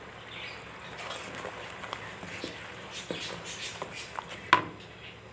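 Tomato-ketchup sauce sizzling in a wok, with scattered small clicks from a wooden spatula working in the pan and one sharp knock about four and a half seconds in.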